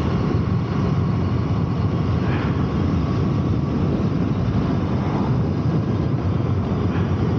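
Triumph T100 865's air-cooled parallel-twin engine running steadily as the bike rides along, a dense low rumble mixed with the rush of air and road noise.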